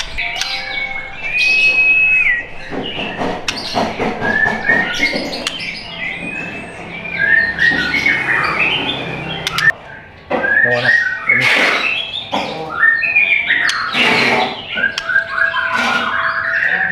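White-rumped shama (murai batu) singing: a varied run of clear whistles and sliding notes, fast repeated notes near the end, broken by many short harsh, noisy notes.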